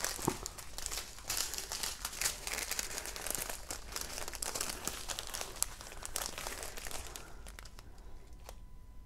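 Small plastic bags of resin diamond-painting drills crinkling and rustling as they are handled and sorted through, with many small crackles; the handling eases off near the end.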